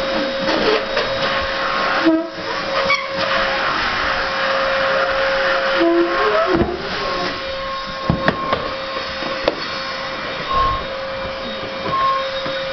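Small vacuum cleaner motor running as a blower, pushing air through its hose into a homemade hovercraft's plastic-sheet air cushion; a steady rushing hum with a held tone. A few sharp knocks come midway.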